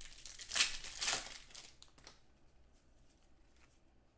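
Foil wrapper of a trading card pack being torn open and crinkled, in two crackly bursts within the first second and a half, then faint rustling.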